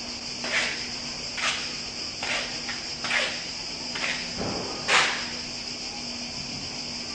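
Steady high-pitched insect chorus, with six short scuffs or rustles about a second apart, the loudest near five seconds in.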